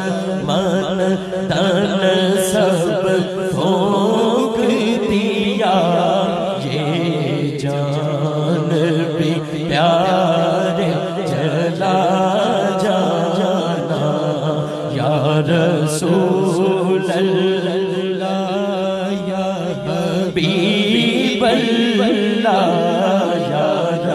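A man singing a naat, an Urdu devotional poem, solo into a microphone in long, wavering sung phrases over a steady low hum.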